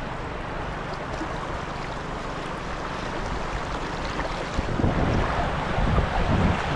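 Fast-flowing stream water rushing in a steady, even hiss, with heavier low rumbling coming in about four and a half seconds in.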